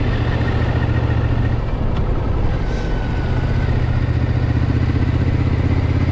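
Triumph Scrambler 900's parallel-twin engine running while the motorcycle is ridden down a road. The engine note dips for a moment about two seconds in, then carries on as an even, rapid pulsing.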